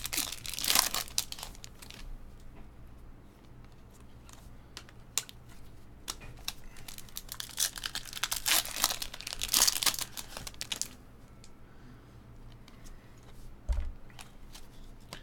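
Foil trading-card pack wrapper crinkling and tearing in the hands, in two busy stretches: one at the start and a longer one midway. Between them come scattered light clicks and rustles of cards being handled.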